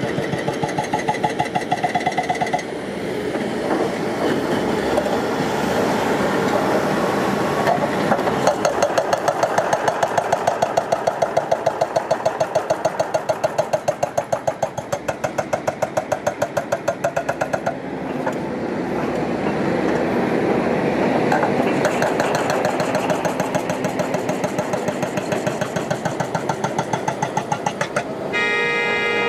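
Heavy earthmoving machinery working rocky ground: a diesel engine running under a rapid, even pounding of about five strokes a second. A short pitched tone sounds near the end.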